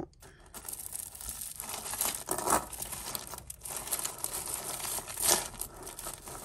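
Plastic bag crinkling and crackling as tangled jewellery is handled and pulled out of it, in irregular handfuls, loudest about two and a half and five seconds in.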